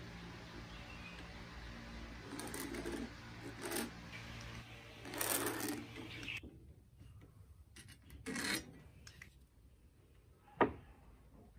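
Scraping and rubbing as a steel square and pen slide over a hardwood block while lines are marked, over a steady low hum that stops about halfway through. Near the end, a single sharp wooden knock.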